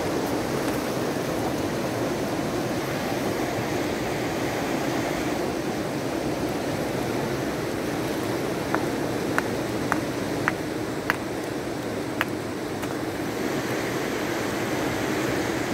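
Fast river rushing steadily over rocks. About two-thirds of the way through, six short, sharp clicks come over roughly three and a half seconds.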